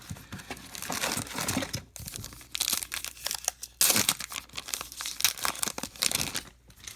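Plastic foil wrapper of a baseball card pack being torn open and crinkled in the hands, a run of crackling rustles that is loudest in the middle.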